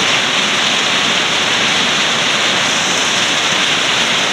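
Heavy tropical downpour: a loud, steady, even hiss of rain.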